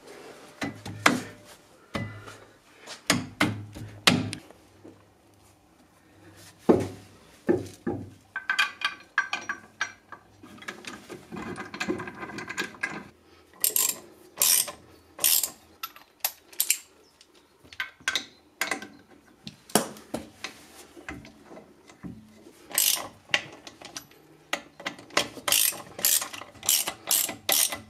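Hand socket ratchet clicking in quick runs of strokes as the wheel bolts of a car's road wheel are run in and tightened. In the first half there are scattered metal knocks and clanks from parts being fitted.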